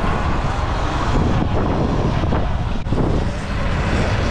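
Wind rushing over the microphone while riding a Sur-Ron X electric dirt bike down a city street, with a motor whine rising and falling in pitch about halfway through.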